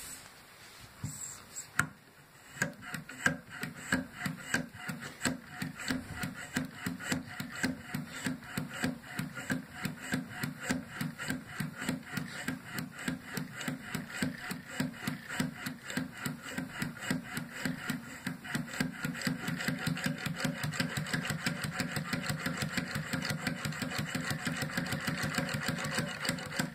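Bassoon reed tip profiler worked by hand, its blade carriage pushed back and forth over the reed so that each stroke gives a short scraping shave of the cane. After a click or two near the start the strokes come steadily at a few a second, then quicker and a little louder about two-thirds through.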